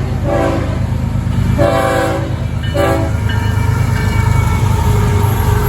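Diesel freight locomotive sounding its multi-note air horn in three blasts, the middle one longest, over the steady low rumble of its diesel engine.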